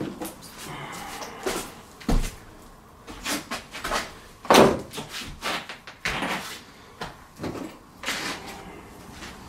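Irregular wooden knocks and clatters of loose timber floorboards being handled and set down on the floor joists, the loudest about halfway through.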